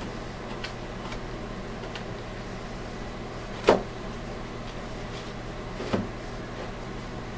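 Masking tape being pulled off a model airplane's fuselage and cowling: faint light crackles, with a short, sharp loud sound about halfway through and a smaller one about six seconds in, over a steady low hum.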